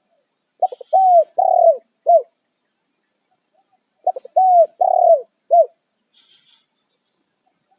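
Spotted dove (tekukur) cooing: two phrases about three and a half seconds apart, each opening with a few quick stuttering notes and followed by three longer, arched coos.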